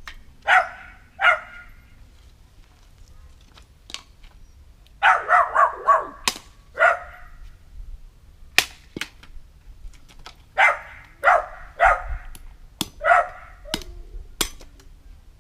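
A dog barking in short single barks, with a quick run of several barks about five seconds in and more scattered barks later. Sharp clicks or knocks come between the barks.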